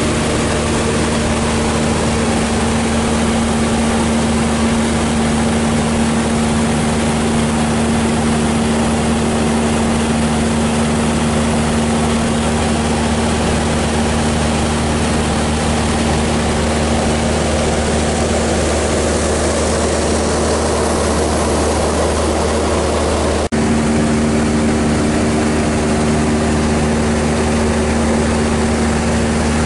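Maule MX-7's piston engine and propeller running steadily in cruise flight, heard inside the cockpit as a constant drone. The sound breaks off for an instant near the end and carries on.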